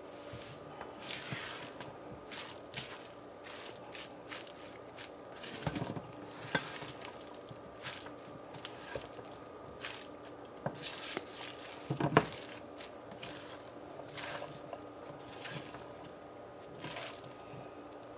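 Plastic spatula stirring and tossing noodles in a nonstick frying pan: soft, wet scraping with scattered clicks against the pan, and a couple of louder knocks about six and twelve seconds in. A faint steady hum runs underneath.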